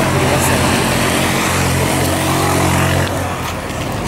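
A motor vehicle's engine running steadily, stopping or pulling away about three seconds in.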